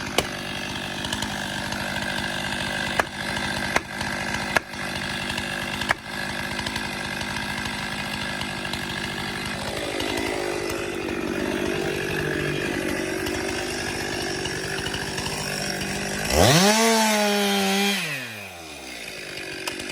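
Two-stroke chainsaw running steadily, with a few sharp knocks in the first six seconds. About sixteen seconds in it revs up sharply to full throttle, holds for about a second and a half, then drops back toward idle.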